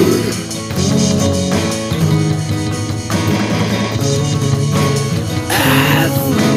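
Instrumental break in a rock song: guitars playing with drum kit backing, cymbals coming in near the end.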